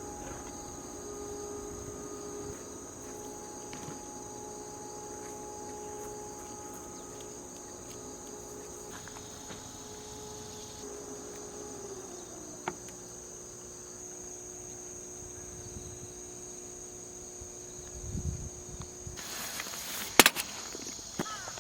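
Autumn crickets chirring steadily in a continuous high trill, with a faint steady low hum underneath. Near the end some rustling and a few sharp clicks come in.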